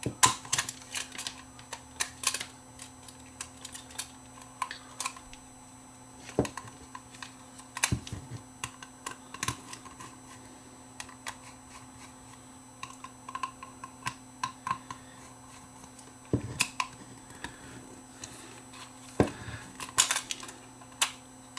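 Scattered, irregular clicks and taps of small plastic and metal parts: a small screwdriver working screws and the plastic housing and circuit boards of a security camera being handled and pried apart. Beneath them runs a faint steady hum.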